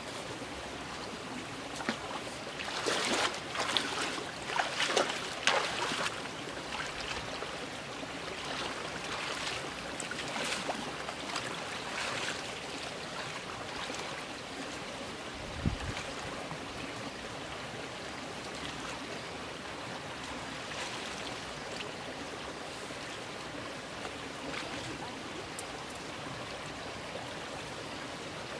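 Rustling and crackling of tall grass and brush as a person walks through it, loudest from about two to six seconds in, over a steady rushing background. A single dull thump about halfway through.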